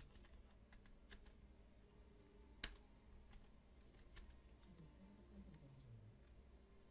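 Faint computer keyboard keystrokes: scattered, irregular key clicks with one much louder click about two and a half seconds in, over a low steady hum.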